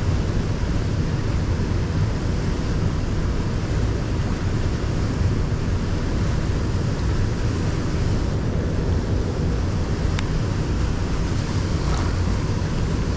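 Steady low rushing noise of wind and river water, with two faint clicks about ten and twelve seconds in.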